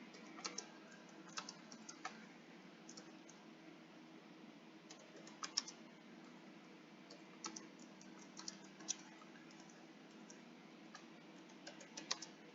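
Computer keyboard keys tapped faintly in scattered short runs, a few keystrokes at a time with pauses between, over a faint steady hum.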